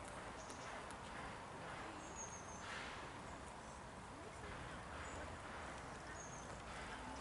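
Faint outdoor background: a steady, even rush with a few short, high bird chirps.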